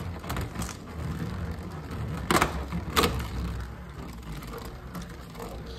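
Hasbro Beyblade Burst spinning tops, Chozy Achilles against a Rip Fire bey, battling in a plastic stadium: a steady whir of the spinning tops with several sharp clacks as they collide, the two loudest about half a second apart near the middle.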